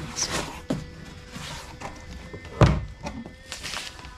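A cardboard box being handled and opened on a plywood crate: scrapes and rustles of cardboard, with one heavy thunk about two and a half seconds in. Background music underneath.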